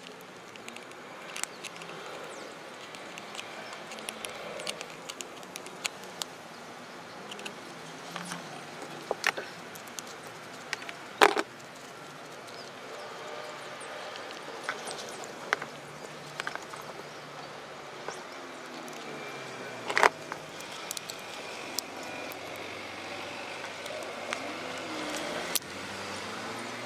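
Small metal parts of a vintage Shimano Crane GS derailleur handled and fitted on a plastic tub lid: scattered light clicks and taps, with two sharper knocks, one about eleven seconds in and one about twenty, over steady background noise.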